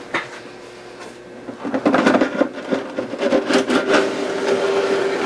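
The metal case of a Tektronix 465B oscilloscope being slid off its chassis. About two seconds in, a steady rubbing scrape starts and carries on.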